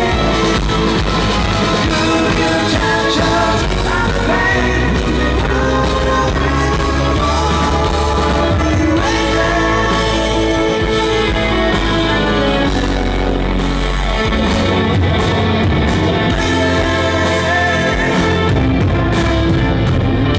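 Live rock band playing a song with a sung vocal over electric guitar, bass, drums and electric violin.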